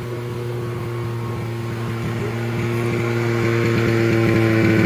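A motor vehicle's engine running at a steady pitch, growing gradually louder as it approaches.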